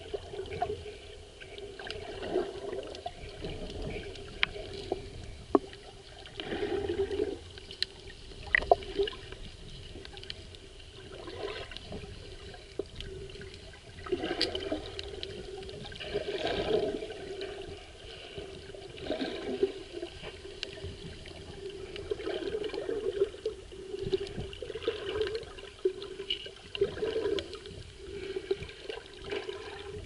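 Underwater water noise: muffled, uneven sloshing and gurgling surges with a steady low hum, broken by a few sharp clicks.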